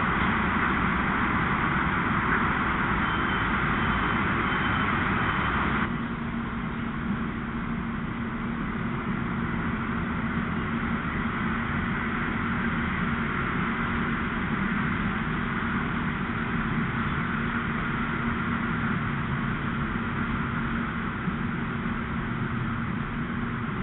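Steady outdoor background noise, a hiss with a low steady hum beneath it. About six seconds in the hiss drops off abruptly and the sound continues a little quieter.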